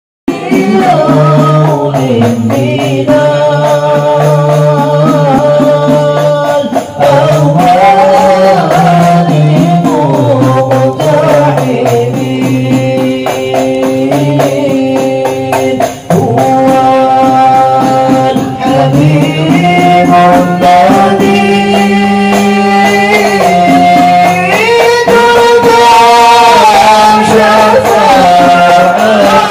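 Men singing an Islamic devotional chant (sholawat) in unison, with a lead voice on a microphone, to the steady beat of hand-struck rebana frame drums.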